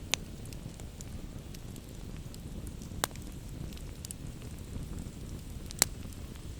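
Campfire burning with a steady low hiss and faint crackling, broken by three sharp, loud pops: one at the very start, one about three seconds in, and one near the end.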